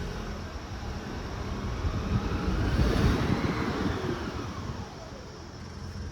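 A passing vehicle: a whooshing sound swells to a peak about three seconds in, then fades away with a falling pitch. A car's steady low engine hum lies underneath.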